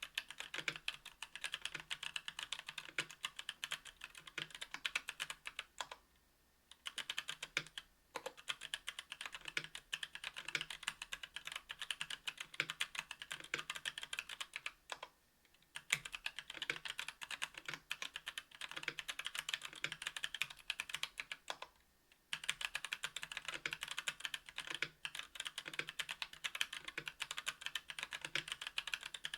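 Fast, continuous typing on a KBDfans Tofu 60% aluminium mechanical keyboard with an aluminium plate, Domikey x Kailh Cyberpunk Pink Purple 62 g tactile switches and GMK keycaps: a dense run of key clacks. The typing pauses briefly three times, at about 6, 15 and 22 seconds in.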